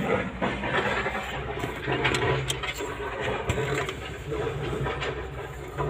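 Steady low hum of an engine running, with a couple of sharp metal clinks from hand tools working on an excavator's diesel engine, about two and a half and three and a half seconds in.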